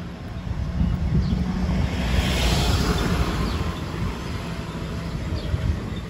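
A passing motor vehicle's engine: a steady low hum with a rushing noise that swells to its loudest about halfway through and then eases off.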